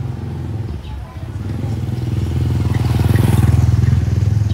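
Motorcycle engine running close by, its low pulsing note growing louder to its loudest about three seconds in.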